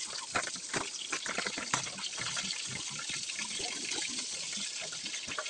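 Steady sound of running water, with small clicks and knocks over it.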